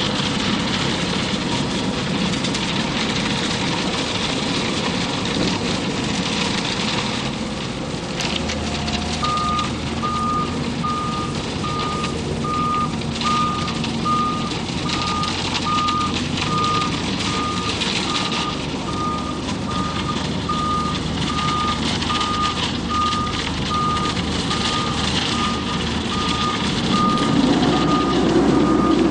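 Self-loading concrete mixer truck's engine running, with a reversing alarm beeping steadily at just over one beep a second. The alarm starts about a third of the way in, and the engine grows louder near the end.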